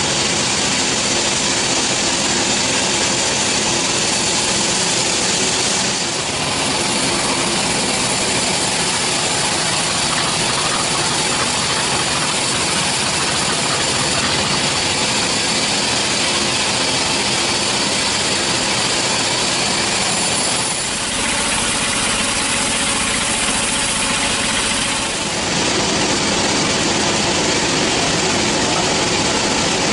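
Band sawmill running with a loud, steady machine noise. The noise shifts abruptly a few times.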